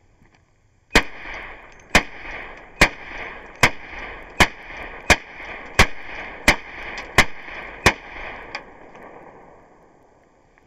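Series of .22 Long Rifle shots fired at the car, heard from inside the car: ten sharp cracks a little under a second apart, then a fainter one.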